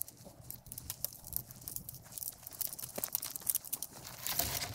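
Irregular crunching of footsteps on dry leaves and dirt, with the crinkle of a plastic ground tarp being handled.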